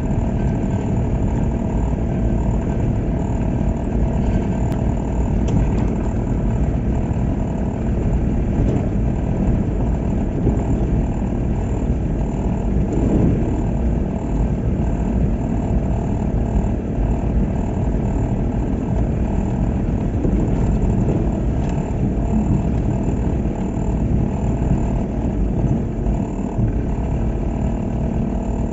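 Car driving, heard from inside the cabin: a steady engine and road-tyre noise.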